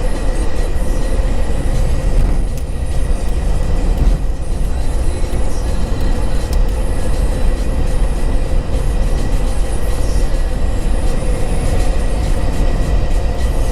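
Steady low rumble of a moving vehicle, with a faint steady hum above it.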